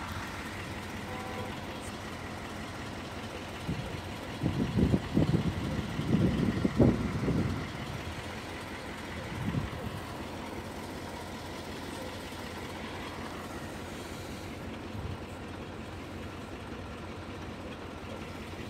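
Close-up rustling and bumping as a hand and the phone move through tall grass, loudest for a few seconds about four seconds in and again briefly near ten seconds, over a steady background hum.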